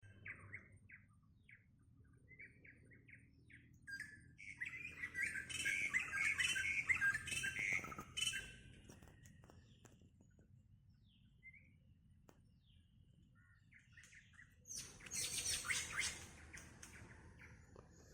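Wild birds chirping: a series of short repeated chirps, then several seconds of dense overlapping calls, a quieter stretch, and another burst of high chirping near the end.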